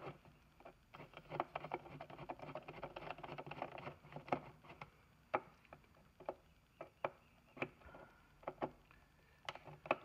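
Screwdriver backing out the mounting screws of a duplex electrical receptacle: a run of small, irregular clicks and scrapes of metal on metal, with a few sharper ticks now and then.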